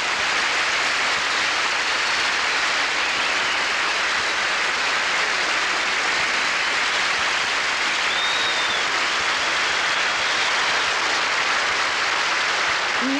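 Studio audience applauding steadily for a bow at the end of a musical number.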